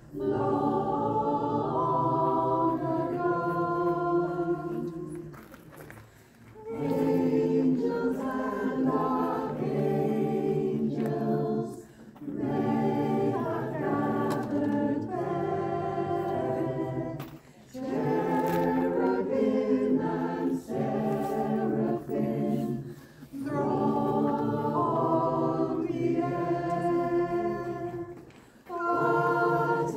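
A choir singing in sustained phrases of about five or six seconds, with brief breaks between them.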